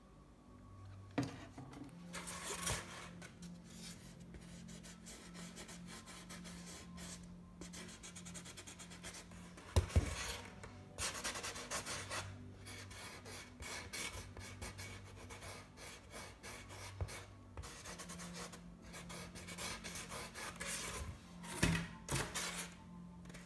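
Paintbrush scrubbing and dabbing on a canvas board in many short scratchy strokes, with a sharp tap about ten seconds in and a couple more near the end.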